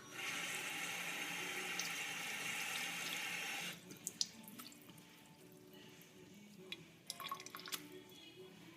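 Tap water running steadily into a sink for about three and a half seconds, then shut off abruptly, followed by drips and small wet clicks.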